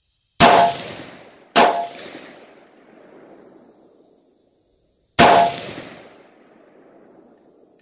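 Three rifle shots from an AR-15-style semi-automatic rifle. The first two come about a second apart and the third about three and a half seconds later. Each shot is followed by a long fading echo.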